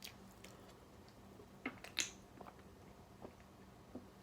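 Faint mouth sounds of a person chewing food: a few soft, irregular wet smacks and clicks, the loudest about two seconds in.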